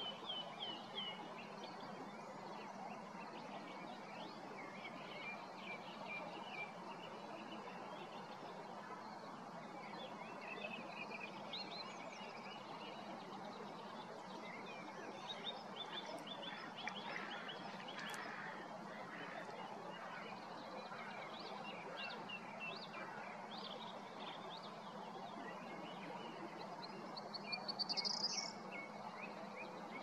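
Small birds chirping and calling throughout over a steady background hum. Near the end, a corn bunting's short jangling song climbs in pitch as a quick run of notes, the loudest sound here.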